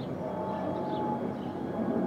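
Twin-engine widebody jet airliner flying overhead: the steady, low rumble of its jet engines, with a faint droning tone through it.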